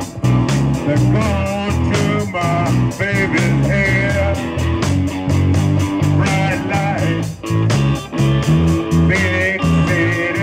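Live rock band playing a blues-rock number: electric guitar, bass guitar and drum kit, with a steady beat and a wavering lead line over the bass.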